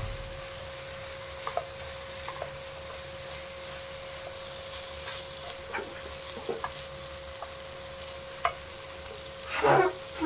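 Vegetables sizzling gently in a nonstick wok while a wooden spoon stirs and scrapes them, with scattered light scraping clicks and a louder clatter near the end.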